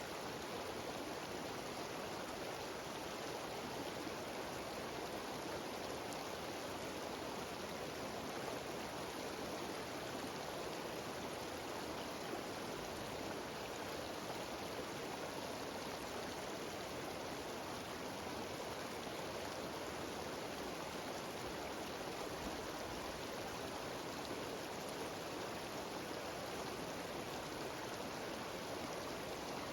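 Mountain stream cascading over rocks in small waterfalls: a steady, even rush of water.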